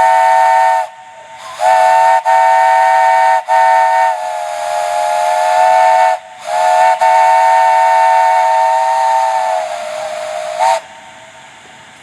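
Lonergan 3-inch three-chime steam whistle sounding its three-note chord over a hiss of steam, in three blasts: one short, then two long ones of about four seconds each. The chord cuts out for an instant a few times and drops a little in pitch and loudness partway through the second blast. The last blast sinks to a single lower note before a brief final burst.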